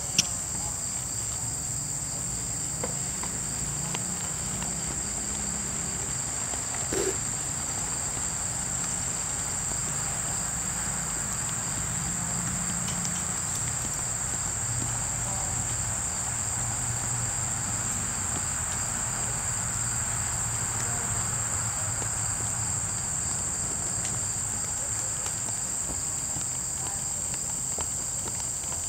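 A steady, high-pitched chorus of insects, such as crickets, at dusk. It is held on two pitches without a break.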